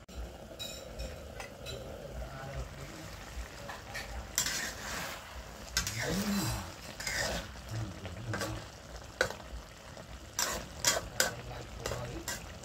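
Metal spatula stirring frog and eggplant curry in a steel wok, over the sound of the curry cooking. From about four seconds in the spatula clacks and scrapes against the pan several times.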